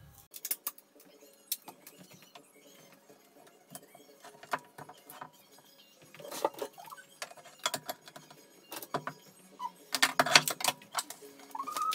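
Woodworking clamps and tools being handled and set down on a worktable: scattered clicks and knocks, with a dense run of clicks and clatter about ten seconds in and a short squeak near the end.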